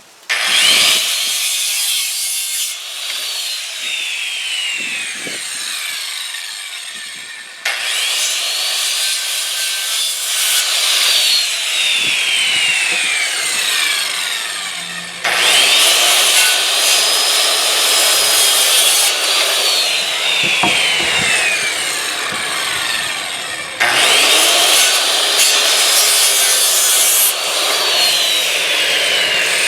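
Circular saw cutting through a wooden 4x4 post in four passes, each starting abruptly, with the blade's whine falling in pitch as it cuts and slows.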